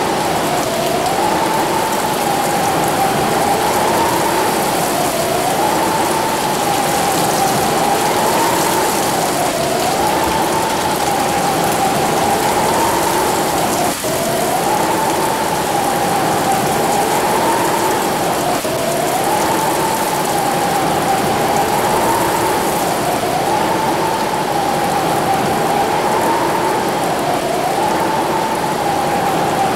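Heavy rain pouring down steadily, over a steady whining tone that wavers slightly up and down in pitch every couple of seconds.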